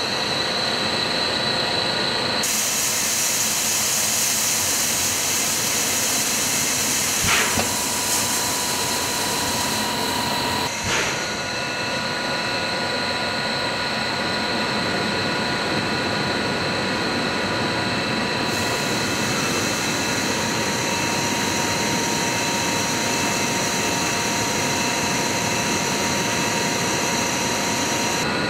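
Blown film extrusion line running: a steady rush of cooling air with machine hum and a few steady high whining tones. A couple of brief clicks come about seven and eleven seconds in.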